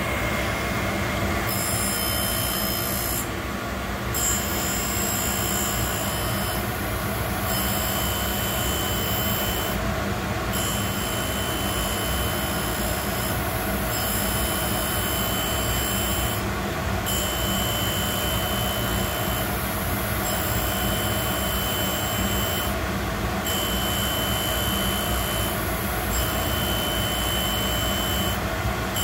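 Boyar Schultz Challenger Deluxe surface grinder running, its wheel grinding a light half-thousandth cut off a steel workpiece under a steady motor hum. The high, ringing whine of the cut drops out briefly about every three seconds as the hand-cranked table reverses between passes.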